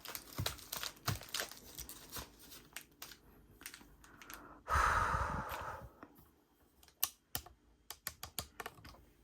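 Fingers handling a plastic-wrapped music album: a run of light clicks and taps on the hard packaging, with one rustle of plastic wrapping lasting about a second near the middle.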